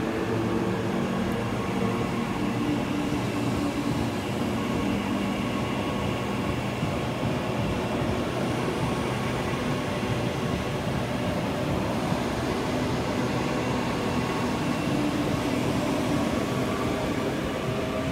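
Train running steadily: an even rumble with a few faint humming tones that drift slightly in pitch.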